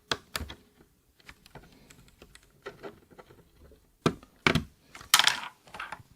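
Plastic parts being pressed and snapped into place on the 8BitDo Retro Mechanical Keyboard M Edition: scattered sharp clicks and clacks, with a cluster of louder ones after about four seconds.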